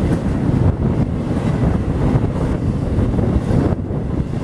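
Double-stack intermodal freight train passing close by at speed: a loud, steady rumble of wheels on rail, with the wind of its passing buffeting the microphone.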